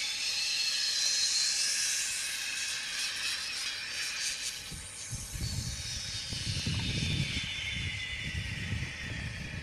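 Zip line trolley running along the steel cable: a high hissing whine that rises in pitch early on, then slowly falls as the rider slows. Wind rumbles on the microphone through the second half.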